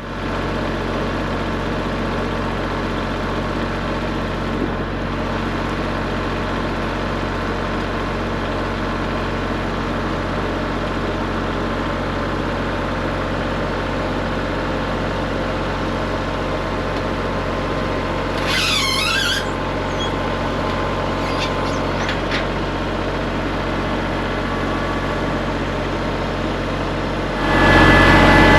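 An engine running steadily, with a brief high squeal that dips and rises about two-thirds of the way through, then picking up and growing louder near the end.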